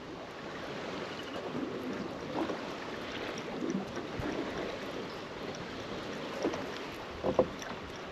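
Small waves lapping against a bass boat's hull in a steady wash, with a few light knocks near the end.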